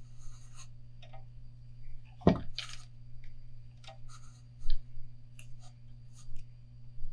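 Small clicks and scratches from hands working thread and a piece of tape on a fishing rod in a thread-wrapping jig, with a sharper click about two seconds in. A steady low hum runs underneath.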